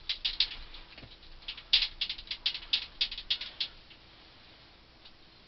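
Quick, irregular sharp clicks and crackles as roofing tar is worked onto copper ground-loop tubing with gloved hands. They stop about four seconds in.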